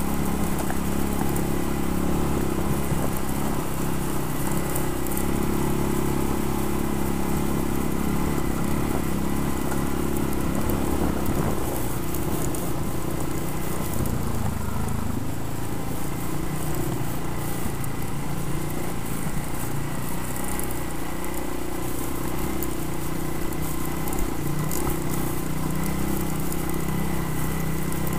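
ATV engine running steadily under way. It eases off briefly about halfway through, then picks up again.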